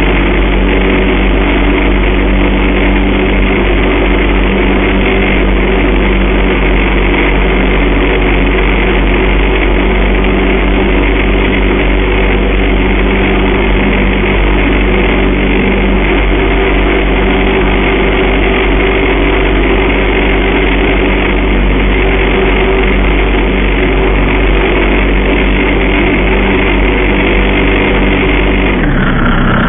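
Ultralight aeroplane's piston engine and propeller droning steadily in flight, with wind rush over the airframe. Near the end the engine note falls sharply as power is reduced.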